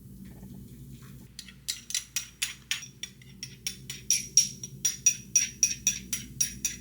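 Closed hi-hat cymbal tapped by itself in a steady rhythm, about three strokes a second, beginning about a second in: a drummer's lead-in before the band comes in.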